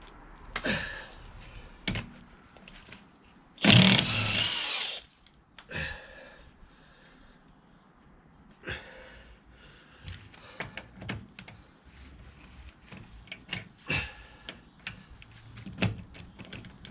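A power tool runs in one short burst of just over a second, about four seconds in, working on the wheel nuts. Scattered clinks and knocks of tools follow.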